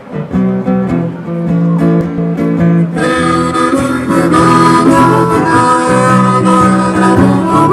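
Instrumental music with stepping notes. It grows fuller and brighter about three seconds in, as higher notes join.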